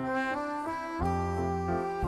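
Background music: a melody of held notes, with a low bass line coming in about a second in.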